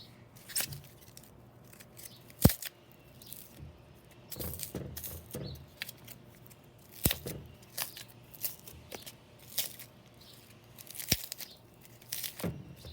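Glue slime full of packing peanuts being kneaded by hand: irregular crackling, crunching and squishing, with three sharp snaps spread through.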